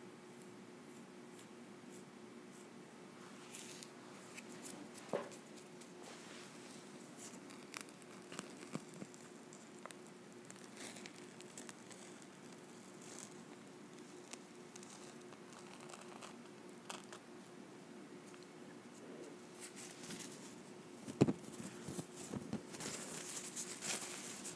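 Dried pomegranate peel-off face mask being slowly peeled from the skin, with faint sticky crackles and small clicks. Near the end the peeled film is crumpled and crinkled in the hands, after a sharp click.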